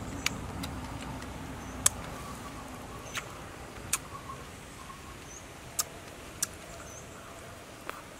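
Close-up mouth sounds of someone eating red dragon fruit: sharp wet smacks and chewing clicks every second or so, at irregular intervals. Faint high chirps recur in the background.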